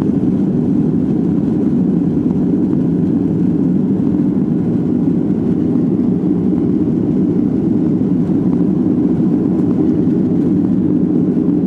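Jet airliner's engines and airflow heard from inside the passenger cabin during takeoff and initial climb: a steady, loud, low rushing noise that does not change.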